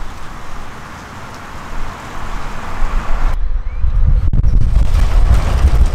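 A pickup truck towing a pressure-washing trailer drives off. After a cut about halfway, heavy low wind rumble on the microphone follows, with a single sharp click about a second later.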